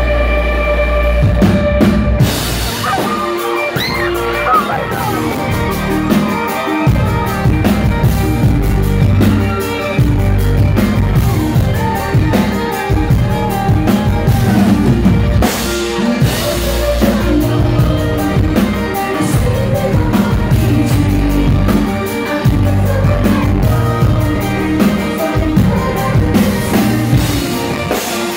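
Live rock band playing: electric guitar, drum kit and singing. A held chord rings for the first couple of seconds, then the drums come in and the full band plays on.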